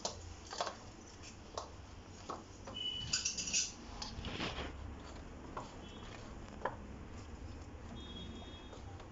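Hands kneading hot steamed rice-flour dough in a steel plate, with scattered faint clicks and clinks of fingers and bangles against the steel and a couple of brief high rings.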